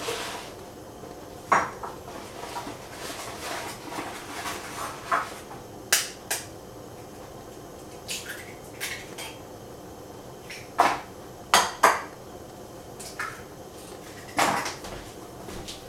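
Dishes and cooking utensils clinking and knocking as they are handled: about ten short, sharp sounds at uneven gaps, the loudest a quick pair about two-thirds of the way in.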